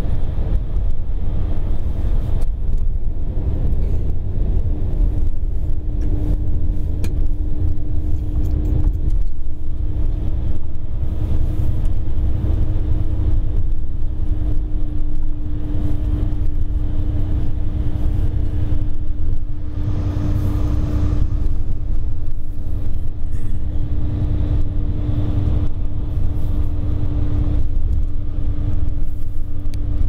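Steady running noise heard from inside a moving electric train: a low rumble of wheels on the track with a constant hum.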